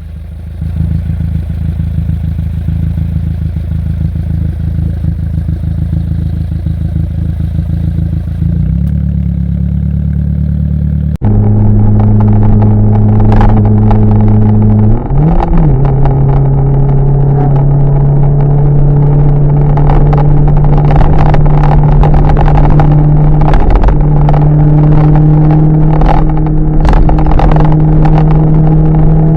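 Car exhaust with a one-off RS-R rear-exit silencer, a loud steady drone while driving. About eleven seconds in it suddenly gets louder, and the pitch briefly dips twice, like gear changes, before settling back to a steady drone.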